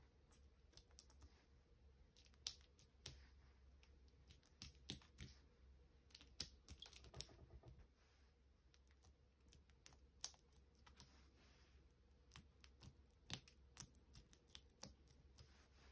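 Fingertips pressing firmly into soft pide dough on a wooden tabletop: quiet, irregular small clicks and taps that come in clusters.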